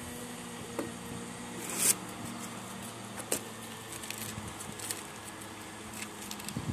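Blue masking tape being peeled off a car bumper, with scattered light crackles and one louder tearing rip just before two seconds in, over a steady low hum.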